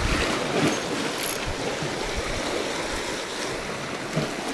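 Sea waves washing steadily against the rocks of a shoreline.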